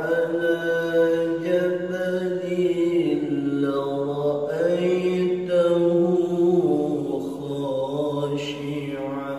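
A man reciting the Quran in the melodic tilawah style, holding long ornamented notes that glide slowly up and down in pitch.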